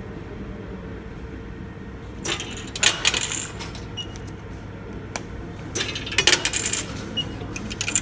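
Metro ticket vending machine dispensing a plastic token, which clatters into the metal delivery tray in two bursts of rattling clicks, about two seconds in and again about six seconds in, with short electronic beeps from the machine between them.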